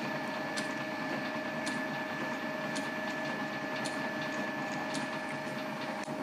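Lorch lathe running with a steady two-tone whine and a faint tick about once a second. The whine stops just before the end.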